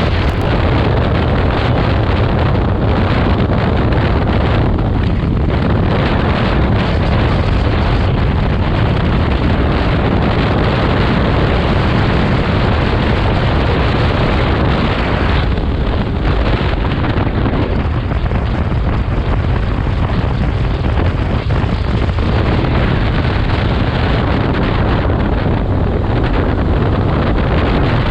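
Steady wind noise on the microphone over a vehicle's engine and rolling noise, as heard while driving or riding.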